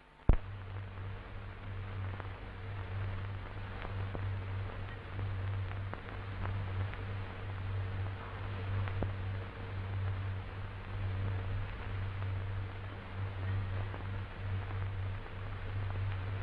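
Old optical film soundtrack noise: a steady hiss over a low, wavering hum, with a sharp click just after the start and a few faint ticks.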